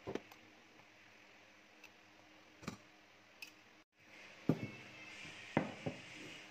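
A handful of sharp, separate knocks and clicks of a hand mixer's metal beaters and a stainless steel mixing bowl being handled, the mixer motor switched off.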